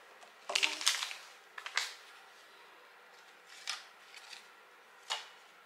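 Cash envelopes and paper bills being handled: crisp rustles and snaps in short bursts, a cluster about half a second in, another near two seconds, and single ones near the middle and near the end.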